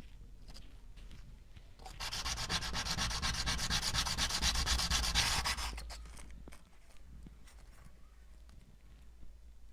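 Sanding: an abrasive rubbing steadily against the workpiece for about four seconds, starting about two seconds in and stopping with small faint clicks around it.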